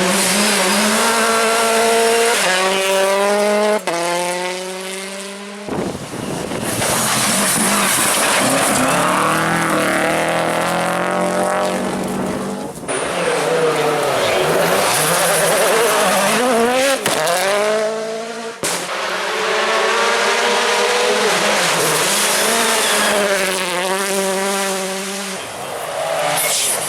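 Rally cars at full throttle, their engines revving up and shifting up through the gears in quick steps as they pass. Several passes follow one another with sudden cuts between them.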